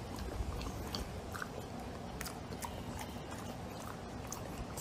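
English bulldog chewing dry kibble, with irregular crunches and clicks over a low background rumble.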